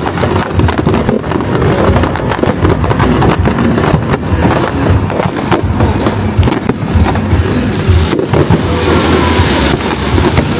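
Fireworks display: a rapid, continuous barrage of aerial shells bursting, with dense bangs and crackles. Near the end a hissing crackle swells as glittering stars burn out.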